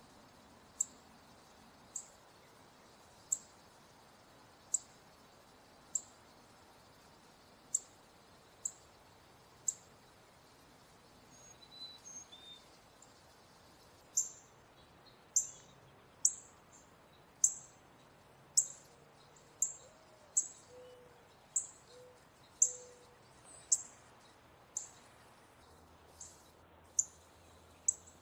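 Male northern cardinal giving short, sharp, high chip calls, about one a second. The calls pause for a few seconds near the middle, then come back louder and slightly faster.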